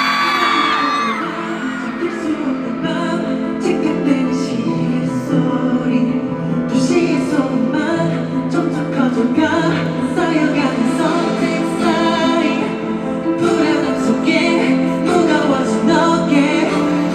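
Live concert music: a male vocalist sings over instrumental backing through the venue sound system. High-pitched crowd screams trail off in the first second.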